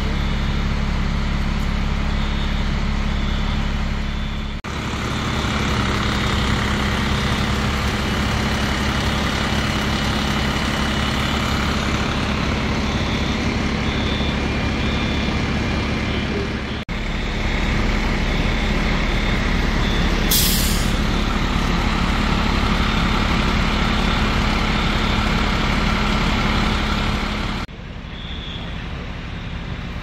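Fire truck's diesel engine running steadily close by, with a short hiss of air about twenty seconds in, typical of an air brake. A faint high beep repeats about once a second, and the sound changes abruptly three times.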